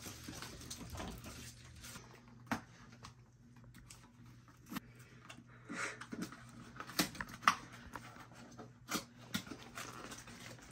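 Scattered rustling and crinkling of tissue paper and a paper gift bag being handled, with a handful of sharp clicks.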